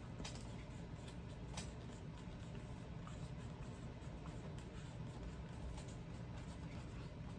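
Faint sound of handwriting on a box, a pen or marker scratching in short strokes over a low steady room hum.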